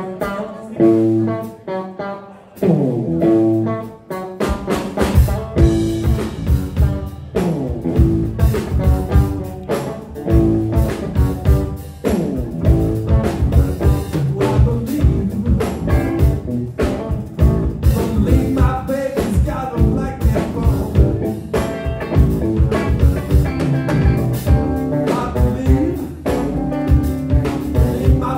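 Live blues-rock band: an electric guitar riff plays alone, then drums and bass guitar come in about four seconds in and the full band plays on in a steady groove.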